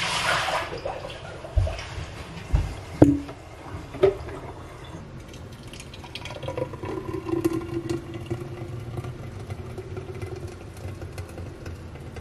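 Thick smoothie being poured into a tall glass, with a few dull knocks of the container in the first four seconds, then a steady slow pour.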